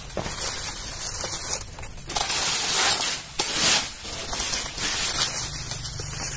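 Banana plant leaves and stalk rustling and crackling as they are handled, with louder swishes in the middle and a few sharp snaps.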